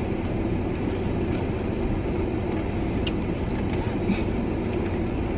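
Steady rushing noise inside a car cabin: the air conditioning blowing on max with the engine running, with a low rumble under it and a faint click or two.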